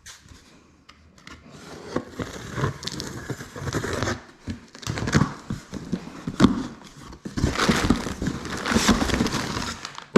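Cardboard box being opened by hand, with packing material rustling and crinkling in irregular bursts and small knocks, starting about a second and a half in.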